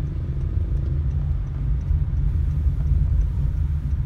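Inside a moving car's cabin: a steady low rumble of engine and road noise while driving.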